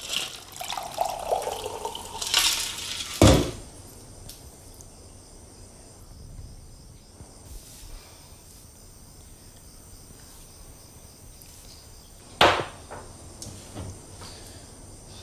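Water poured from a plastic jug into a glass for about three seconds, ending in a sharp knock as the jug is put down on the kitchen counter. After a long quiet stretch comes a second, similar knock about twelve seconds in.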